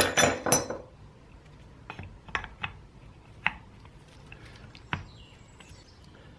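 Clinks and clicks of a Kärcher K4 pressure washer's metal pump head being handled and fitted back onto the motor housing: a short burst of clatter at the start, then a few single light clicks.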